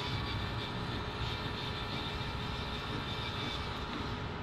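Small pen-style electric precision screwdriver running with a steady high whine as it drives a screw into the drone frame, stopping about three and a half seconds in.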